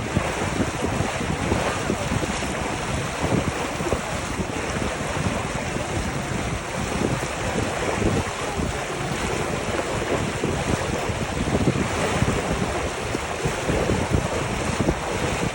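Wind buffeting the microphone on board a moving boat, with gusty rumbling over a steady rush of water.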